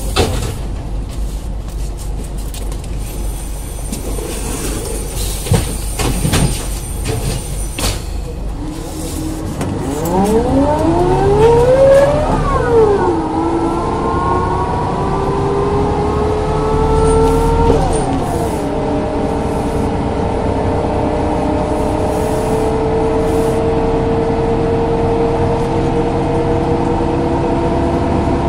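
Ikarus 415 bus with a DAF LT 160 diesel engine and ZF 4HP 500 automatic gearbox running with a few clicks, then pulling away. Engine and gearbox whine rise in pitch, drop sharply as the gearbox shifts up about twelve and eighteen seconds in, then climb slowly again.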